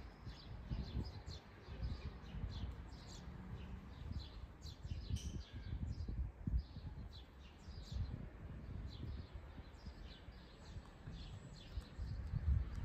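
Small birds chirping again and again in short high notes, over a low, uneven rumble of outdoor background noise.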